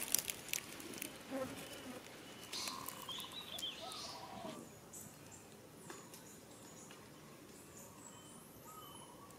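Scattered short, high animal squeaks and chirps, with a few sharp clicks in the first second, then a quieter stretch with a faint thin high trill.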